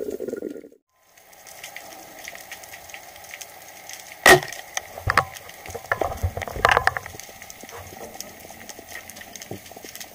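Underwater ambience heard through a diver's camera: a steady crackle of fine clicks with a few louder sharp clicks, the loudest about four seconds in. A short water sound at the start cuts off in a brief silence under a second in.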